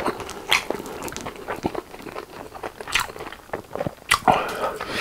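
Close-miked chewing of Goobne Volcano spicy-glazed fried chicken drumsticks: wet mouth sounds broken by a few sharp crunches of the crispy skin, the loudest about three and four seconds in.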